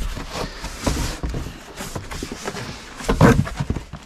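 Cardboard box and plastic packaging rustling and crinkling as supplement tubs and cans are handled and lifted out, with small knocks of containers and a louder burst about three seconds in.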